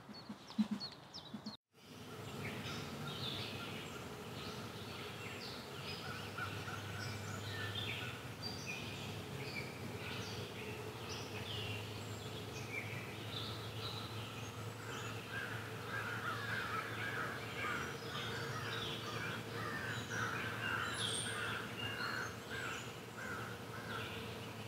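Many songbirds chirping and calling at once in a dense chorus over a steady low hum. It starts after a brief moment of silence about two seconds in.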